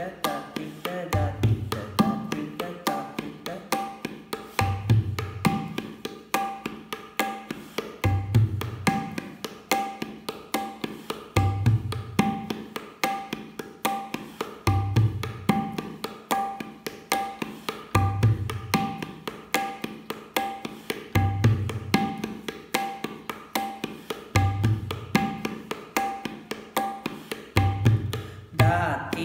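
Tabla pair played in a steady normal 6/8 beat. Quick repeated strokes ring on the dayan at its tuned pitch, and a deep bass stroke on the bayan comes about every three seconds, marking each cycle.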